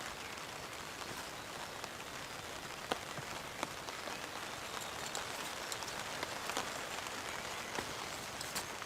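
Steady rain falling, with scattered sharp taps of single drops landing close by.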